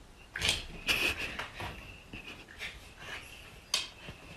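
Dog breathing and snuffling close by, in short irregular bursts.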